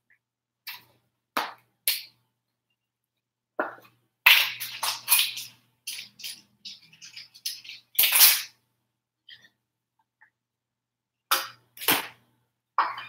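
Sharp knocks, taps and clatter of kitchen containers being handled while flour and cornstarch are measured into a zip-top bag: a few separate knocks in the first two seconds, a dense clatter about four to six seconds in, a loud knock at about eight seconds, and a few more near the end.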